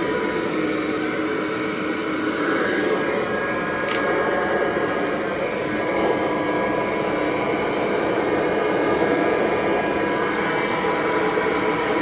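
1958 Kirby Model 518 upright vacuum cleaner running steadily while vacuuming carpet, its motor and fan giving an even rushing drone with a faint whine, and one brief click about four seconds in.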